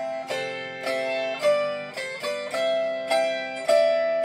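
Autoharp played solo: chords strummed about twice a second, each stroke ringing on into the next, with the chord changing every second or so.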